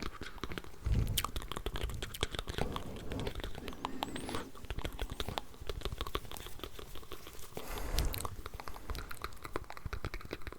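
Close-miked ASMR mouth sounds in layers: a dense run of wet clicks and smacks, with a few soft low thumps about a second in and again near the end.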